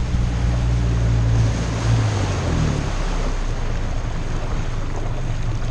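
Glastron 007 runabout under way, its engine running with a steady low drone over the rush of water and wake spray and wind on the microphone. The engine note shifts about two seconds in.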